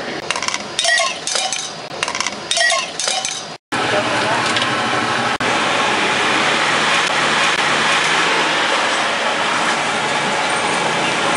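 Metal clinks and knocks from a wire-mesh noodle strainer being shaken and tapped over the bowls, in two short clusters. After a sudden break a little under four seconds in, a steady rushing noise takes over.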